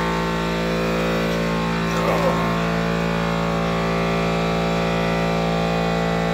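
A steady machine hum, made of many even tones that hold a constant level, runs under the work in the garage. A brief voice-like sound comes about two seconds in.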